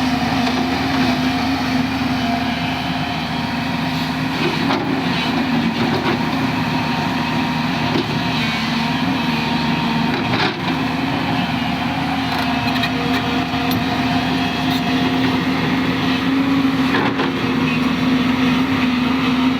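JCB excavator's diesel engine running steadily, with a few sharp knocks along the way.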